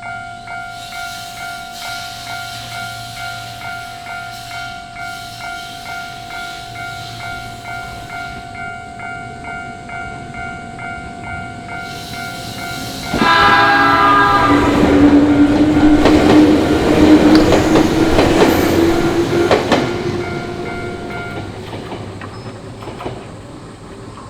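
Japanese level-crossing warning bell ringing steadily in a fast repeated clang. About thirteen seconds in, a short train horn sounds and an electric train passes over the crossing: its wheels clatter over the rail joints under a motor whine that rises in pitch. The bell stops near the end, as the train noise fades.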